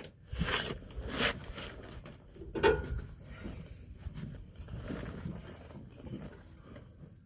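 Plastic zip ties being pulled tight by hand around a folded air bag, with irregular scraping, rustling and clicking; the loudest scrape comes about two and a half seconds in.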